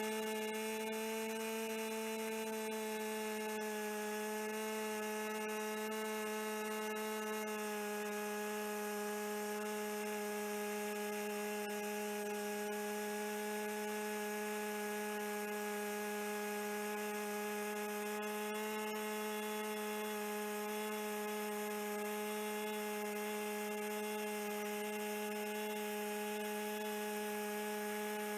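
A small motor running at a constant speed: a steady hum with one clear, unchanging pitch.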